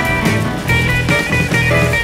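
Background music: a rock track with pitched notes changing every fraction of a second.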